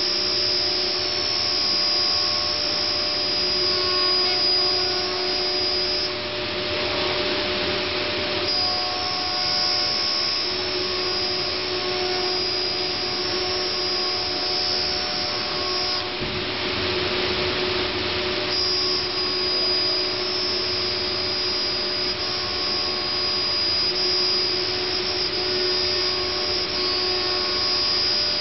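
Multicam 3000 Series CNC router running with its 7.5 HP spindle and dust collector: a steady, loud machine noise carrying a high whine. Twice, for a couple of seconds each, the whine drops out and a rougher hiss takes its place.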